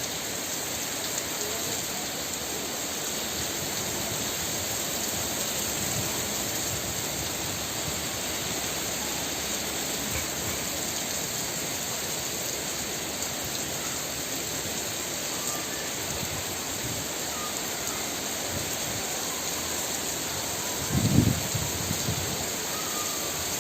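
Heavy rain falling, a steady even hiss. A short louder low sound comes near the end.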